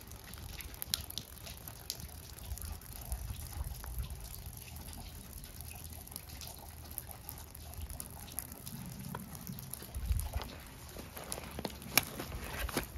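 Faint trickling and dripping of water, with scattered light clicks and rustles that become a little more frequent near the end.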